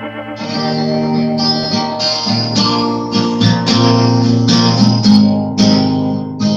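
Acoustic guitar strumming chords in an even rhythm, about two strokes a second; about half a second in it takes over from the end of a different recorded tune.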